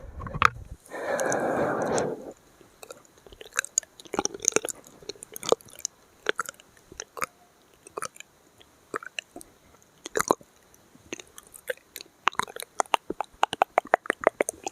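Close-miked mouth sounds: a short rushing noise about a second in, then scattered wet clicks and smacks of lips and tongue that quicken into a rapid run near the end.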